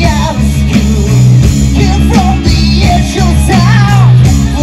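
Live rock band playing loud over a PA: electric guitars, bass and drums, with a voice singing over the band.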